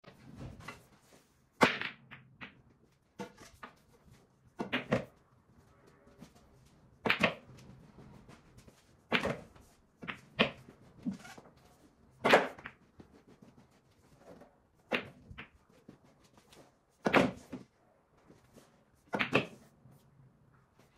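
Pool balls clacking: sharp clicks and knocks of cue strikes and balls colliding on a pool table, a loud one about every two seconds with fainter knocks between.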